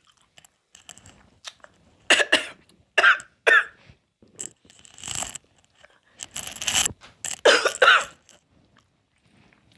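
A woman coughing in several bouts, short hard coughs starting about two seconds in and coming in clusters until near the end.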